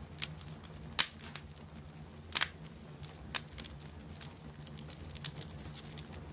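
Wood fire crackling in a fireplace: irregular sharp pops and snaps, the loudest about a second in and about two and a half seconds in, over a steady low hum.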